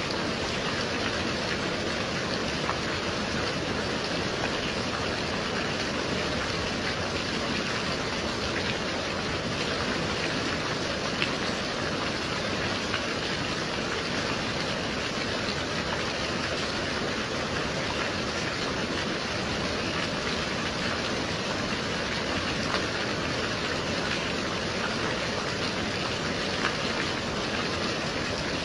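Gentle steady rain: an even hiss of falling rain with a few slightly sharper drop ticks.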